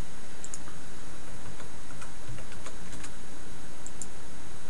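A few light, unevenly spaced clicks from a computer keyboard and mouse as numbers are typed into fields, over a steady background hiss.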